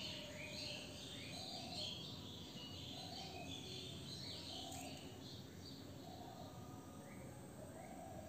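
Birds chirping, many short overlapping chirps, with a lower call repeated about every one and a half seconds; faint, over a low steady background hum.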